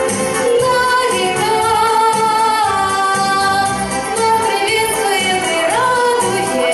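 A young girl singing a song through a microphone and PA speakers, over a backing track with a steady beat.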